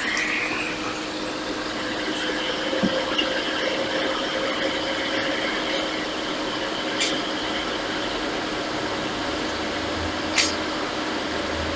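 Hot-air rework station blowing steadily on a MacBook logic board, a continuous airy whoosh with a faint fan whine. A couple of sharp clicks about 7 and 10 seconds in.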